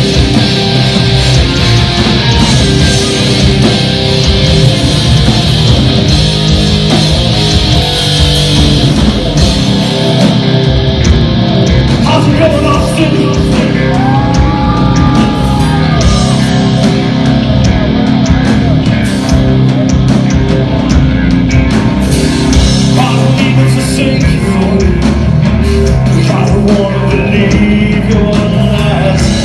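A live hard rock band playing loud, with distorted electric guitars over bass and a drum kit. About halfway through, a held guitar note bends up and back down.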